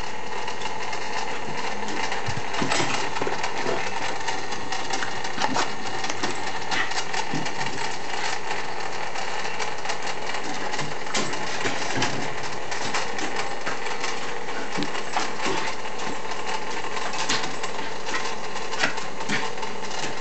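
Bubble machine's small electric motor and fan running steadily, with many irregular sharp clicks over it.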